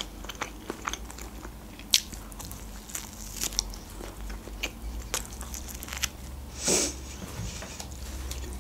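Close-miked biting and chewing of meat pizza: irregular crust crunches and wet mouth clicks. There is a short breathy rush about two-thirds of the way through.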